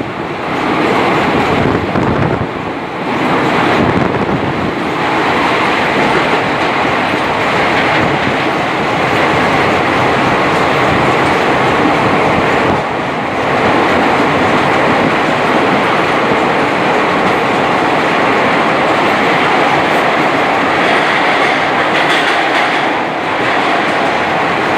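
Train running at speed: a loud, steady rumble of wheels on the rails, settling into an even noise after the first few seconds.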